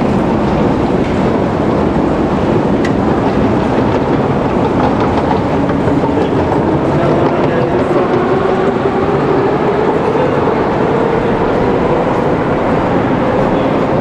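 Moscow metro train running, a loud steady rumble with a motor whine that rises in pitch through the middle of the stretch and then holds, as the train picks up speed.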